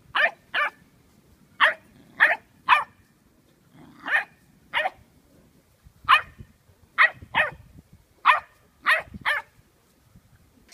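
A dog barking: about a dozen short, sharp barks in irregular pairs and threes, with short pauses between.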